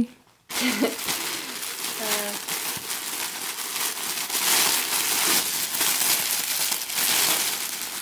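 Clear plastic clothing bag crinkling and rustling as hands pull a garment out of it. The rustle is continuous and crackly, starting about half a second in.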